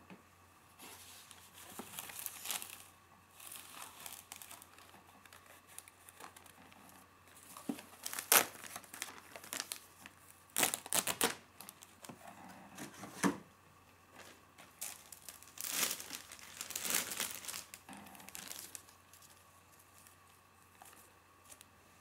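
Thin plastic freezer bag crinkling and rustling in irregular bursts as it is handled and unfolded, with a few sharp crackles about eight and eleven seconds in.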